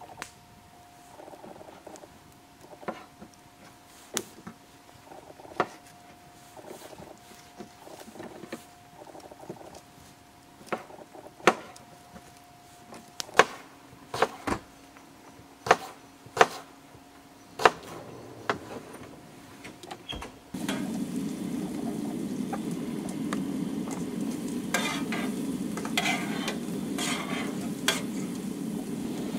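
A kitchen knife chopping an onion on a wooden board: sharp knocks about once a second, getting louder. About two-thirds of the way in, sliced mushrooms land on a hot griddle on a propane camp stove and start sizzling steadily, with a few stirring scrapes near the end.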